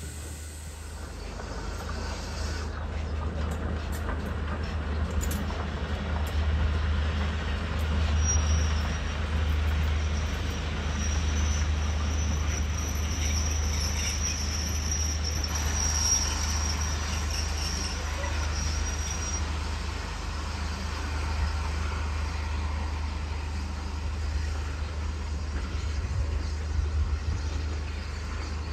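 GWR 4575 class 2-6-2 tank locomotive 5553 and its coaches running past, a steady rumble of wheels on the rails, with a thin high wheel squeal from about eight seconds in that stops a little before halfway.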